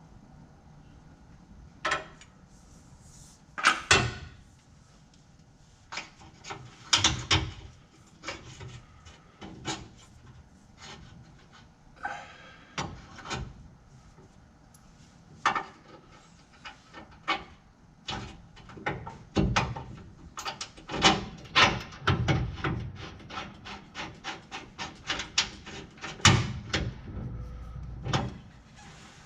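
Irregular knocks, clanks and scraping as hand tools and car parts are handled and fitted, with several sharp louder hits.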